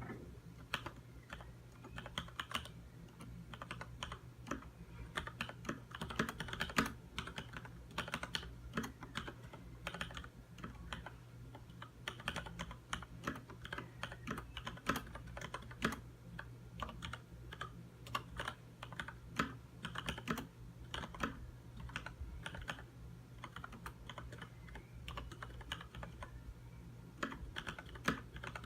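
Typing on a Leopold FC900R mechanical keyboard with Cherry MX Red linear switches: a continuous, irregular run of keystrokes, several a second, over a steady low hum.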